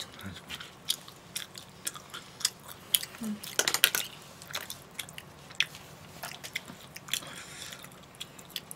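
Close-up eating sounds: chewing and biting into chewy rice cakes, with irregular sharp clicks of plastic forks against the dishes. The clicks are busiest about three to four seconds in.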